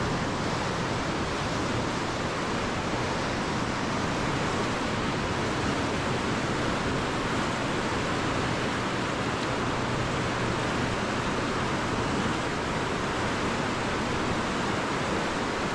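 Steady rush of fast-flowing river water below a hydroelectric dam during generation releases: an even, unbroken hiss, with a faint low hum beneath it.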